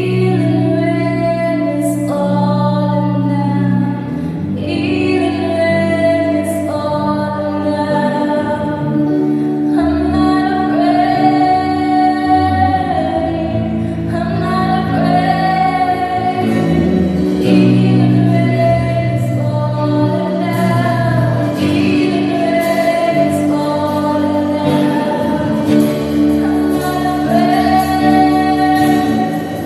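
Gospel worship music: a woman singing long, held phrases over sustained chords that change every couple of seconds.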